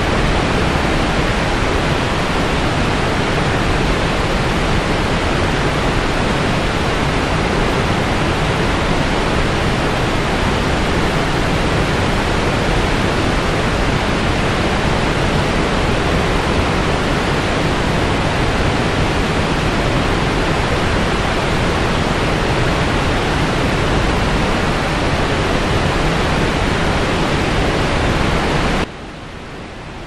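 Water rushing down a stepped concrete spillway cascade in full spring flow: a loud, steady, even rush with no pitch. About a second before the end it drops abruptly to a much quieter steady rush.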